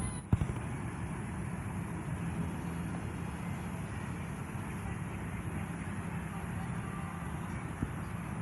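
Steady low rumble of road traffic, with a single sharp knock just after the start.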